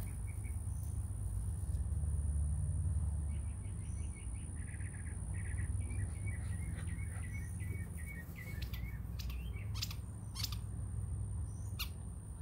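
Backyard ambience: a low rumble of wind or handling noise on the microphone, with birds chirping in short runs from about four to nine seconds in, a thin steady high whine, and a few sharp clicks near the end.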